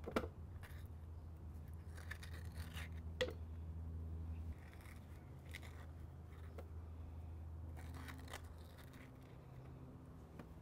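A few faint scrapes and soft knocks over a low steady hum, as a pitted avocado is scooped from its skin into a food processor bowl.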